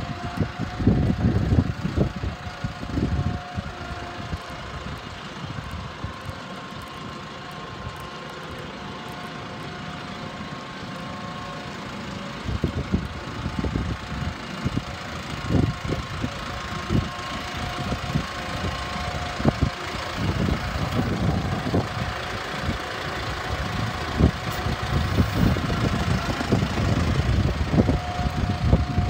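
Case IH tractor's diesel engine running as the tractor drives, fainter as it moves away and louder as it comes back toward the listener, with a faint steady whine over the engine.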